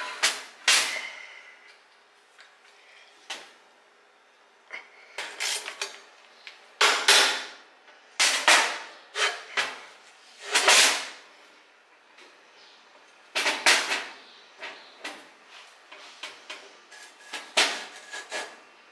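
Irregular clanks and knocks of metal parts and tools being handled, some ringing briefly, as a turbocharger is positioned on an exhaust manifold during a mock-up.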